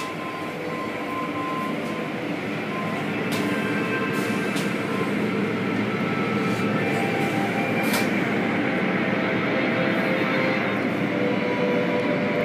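Automatic car wash machinery running: a steady rushing and rumbling from the spinning cloth brushes and water spray, with a few sharp knocks. It grows a little louder about four seconds in.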